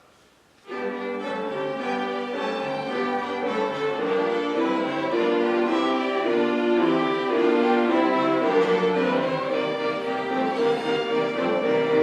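High school orchestra, led by violins and cellos, starting to play about a second in: sustained chords under a moving melody, steady in loudness.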